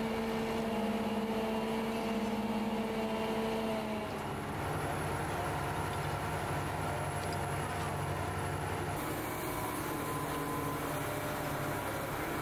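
Diesel engine of a mobile truck crane running steadily while it hoists concrete wall panels. Its hum shifts to a lower pitch about four seconds in.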